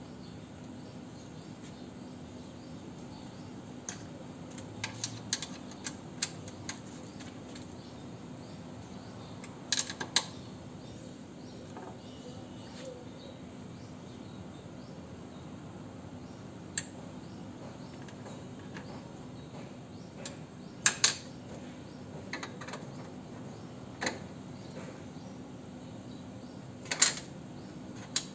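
Scattered sharp clicks and taps of tools and parts being handled during work on a car horn fitting, over a steady low hum. A quick run of clicks comes a few seconds in, and the loudest knocks come in pairs around the middle and near the end.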